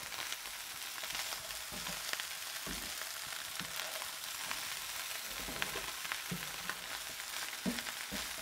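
Fried rice sizzling in a frying pan as it is stirred and turned over with a metal slotted spatula, the spatula scraping and clicking against the pan in short irregular strokes.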